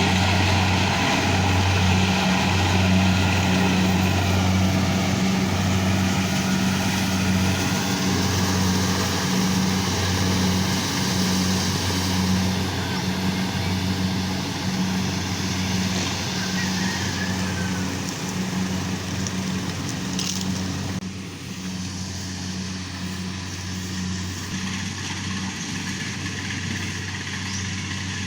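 An engine running steadily at an even speed, a constant low hum with a rougher noise above it; it drops a little in level about two-thirds of the way through.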